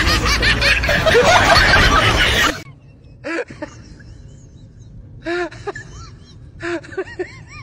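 A young child laughing hard and loud in rapid pulses, cut off suddenly about two and a half seconds in. After it come a few short pitched sounds, each rising then falling.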